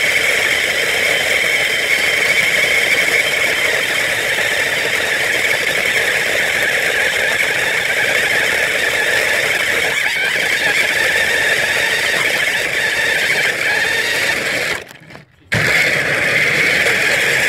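Battery-powered ride-on toy car's electric motors whining steadily as it drives. The sound cuts out briefly about fifteen seconds in, then resumes.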